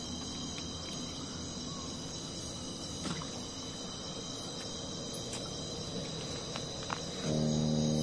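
Steady night chorus of crickets and other insects, several high-pitched trills held on even tones, with a few faint clicks. Near the end a louder low hum with overtones starts suddenly.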